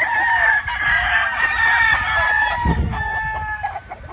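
Several gamefowl roosters crowing at once, their long crows overlapping one another continuously, with some clucking among them.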